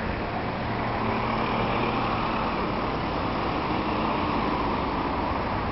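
A car driving past on the road, a steady mix of engine hum and tyre noise.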